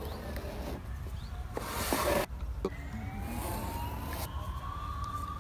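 A pen scratching marking lines onto masking tape stuck to a canoe's hull, drawn against a straight-edge in two strokes of about a second each. Behind it is a low steady rumble, and in the second half a faint whine rises slowly in pitch.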